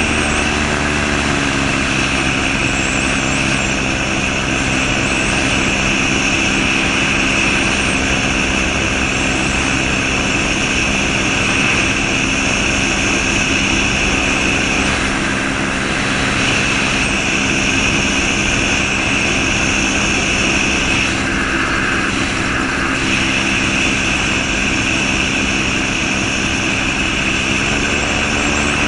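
Gyrocopter's Subaru EA-81 flat-four engine turning a Warp Drive propeller through an NSI gearbox. It is throttled back about a second in to a lower, steady drone for the descent to the runway, and its pitch rises again near the end.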